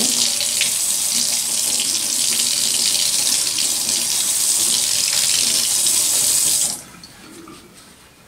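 Water running steadily from a tap into a sink, turned off about seven seconds in.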